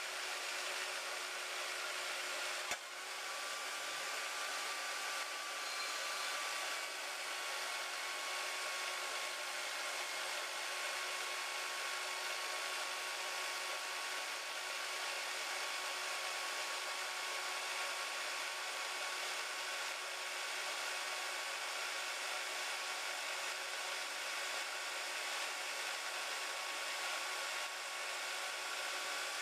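Harbor Freight band saw running steadily, its blade cutting slowly through metal stock with a constant whirring hiss. There is a single sharp click about three seconds in.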